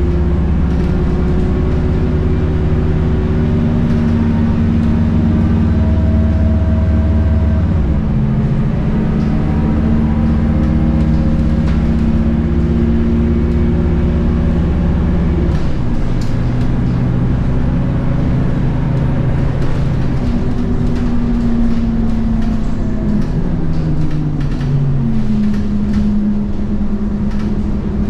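Scania DC9 230 hp five-cylinder diesel engine of a Scania K230UB bus with ZF Ecomat 6HP502C automatic gearbox, heard from inside the cabin while driving. The engine note holds steady, changes pitch about eight seconds in and again about halfway through, then falls and resettles late on as the gearbox shifts.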